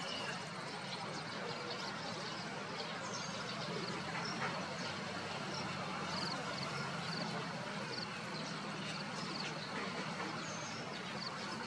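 Steady outdoor background noise: an even hiss with a low hum under it, and faint short high bird chirps scattered through it.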